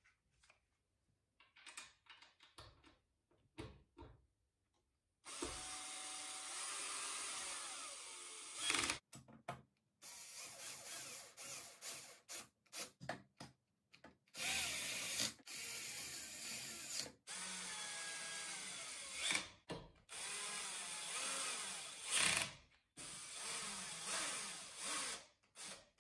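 18-volt cordless drill-driver driving screws into a desk frame in repeated runs of a few seconds each, the motor's pitch rising and falling as the screws turn and seat. A few light clicks and knocks come first, before the drilling starts about five seconds in.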